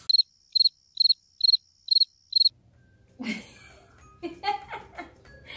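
Cricket chirping sound effect: six evenly spaced high chirps, about two a second, over dead silence, stopping after about two and a half seconds.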